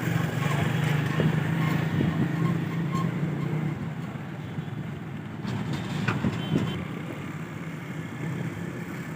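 Street traffic: a motor vehicle engine hums steadily over general road noise, easing off about four seconds in. A brief high rising tone sounds about six seconds in.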